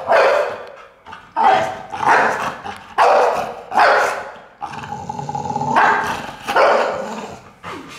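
Pit bull barking and grumbling at its owner in a string of about seven loud, open-mouthed calls, with one longer, drawn-out call about five seconds in. It is the dog's protesting 'talk' while it begs for a treat.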